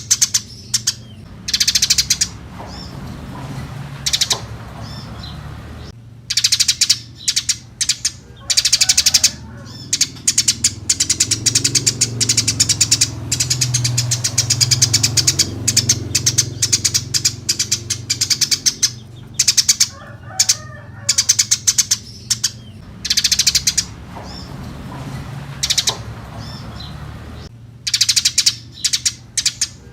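Eurasian tree sparrow chirping busily: rapid runs of sharp, high chirps in bursts of one to two seconds, coming again every second or two.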